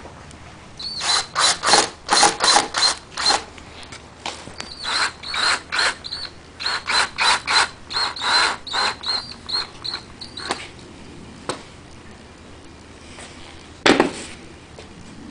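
Power drill driving screws through MDF speaker rings into a door panel, run in many short trigger pulses with a high motor whine, in two runs with a short pause between. A single sharp knock near the end.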